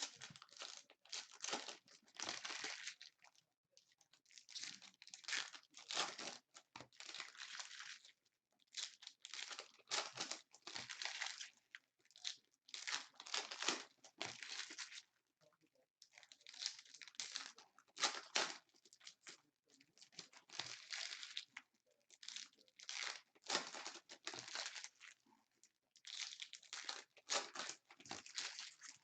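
Basketball trading card pack wrappers being torn open and crinkled, with the cards handled, in repeated rustling bursts a second or two long with brief pauses between them.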